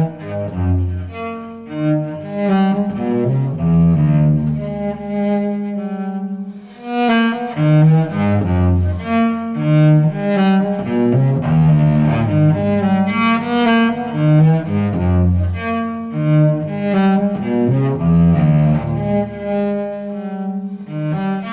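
Instrumental classical music: a moving bass line under higher melody parts, notes changing at a steady pace, with a brief drop in level about six seconds in.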